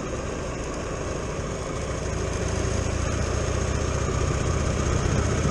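Buell XB12X motorcycle's 1203 cc V-twin engine running under way, heard from on the bike, getting gradually louder over the few seconds.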